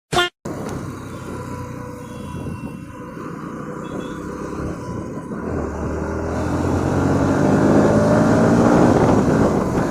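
Motorcycle engine running, rising steadily in pitch and loudness from about halfway through as the bike accelerates through the gears.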